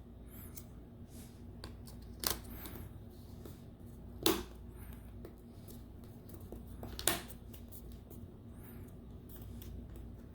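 Small clicks and taps of hands working the opened tablet's plastic and metal parts during reassembly, with three louder clicks and fainter ticks between them over a low steady hum.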